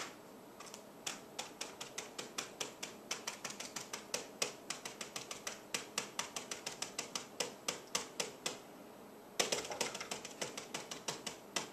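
Calculator keys being pressed one after another, a run of short clicks at about five a second, then after a pause of about a second a quicker flurry of key presses near the end.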